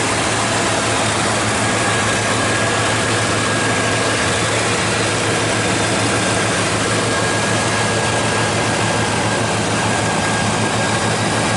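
1995 GMC Yukon's 5.7-liter V8 idling steadily, heard with the hood open, with a faint steady high whine over it.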